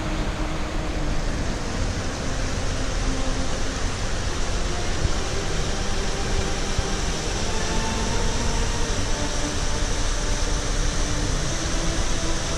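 Steady rushing of a mountain stream's rapids and waterfall, an even hiss of water with a low rumble beneath.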